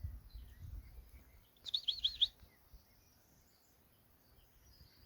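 A wild bird calls once about two seconds in: a quick run of four looping high notes, over a faint low rumble.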